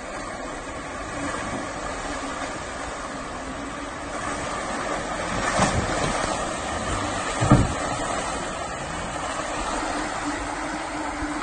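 Jeep Wrangler driving through a muddy water hole: engine running under throttle while the tyres churn and splash through the mud, growing louder as it approaches, with two sharper thumps about halfway through.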